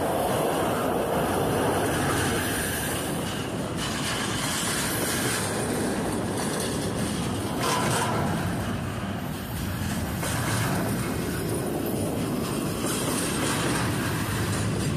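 A double-stack intermodal freight train's container well cars rolling steadily past close by: a continuous rumble and clatter of steel wheels on the rails.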